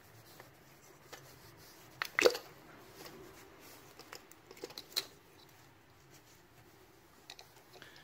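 Plastic ignition coil packs clicking and knocking as they are unplugged and worked out of the cylinder head by hand. There is a sharp clack about two seconds in and a few lighter clicks around four to five seconds.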